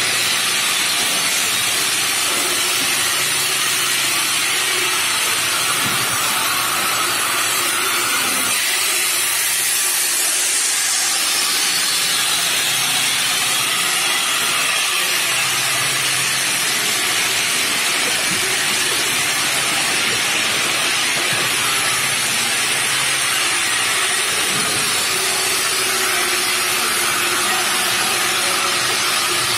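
Bridge saw's large water-cooled diamond blade cutting through granite slab: a loud, steady hissing grind, with a faint low hum from the machine underneath.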